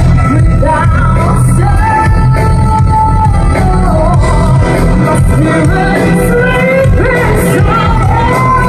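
Live pop band playing loudly through a stage PA, with a woman singing the melody over drums, keyboard and guitar; the bass is strong and heavy throughout.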